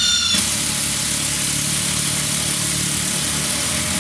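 Makita 40V XGT cordless impact drivers driving long timber screws. A high motor whine gives way, about a third of a second in, to continuous rapid hammering from the impact mechanism as the screws bite into the wood under load.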